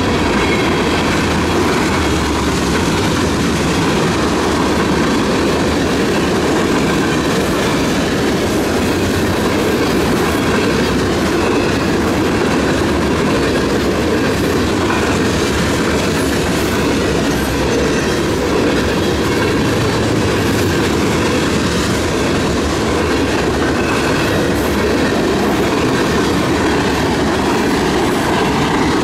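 CSX mixed freight train's tank cars and covered hopper cars rolling past, a loud, steady rumble of steel wheels on the rails.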